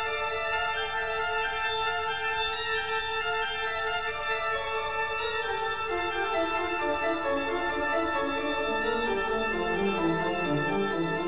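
Background organ music: sustained chords, with a line of notes stepping down in pitch through the second half.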